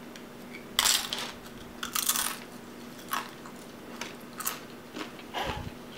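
Tortilla chip dipped in salsa being bitten and chewed: about half a dozen sharp, irregular crunches.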